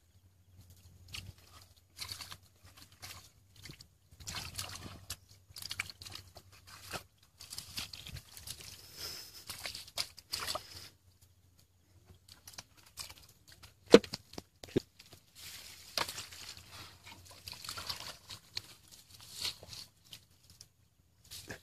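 Hands and feet sloshing and scraping through shallow muddy water and mud in irregular bursts, with small splashes and squelches. A single sharp knock about two-thirds of the way through is the loudest sound.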